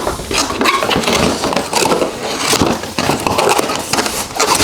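Cardboard and plastic packaging being handled and pulled apart, with a dense run of crinkling, rustling and small knocks as parts are worked out of the box.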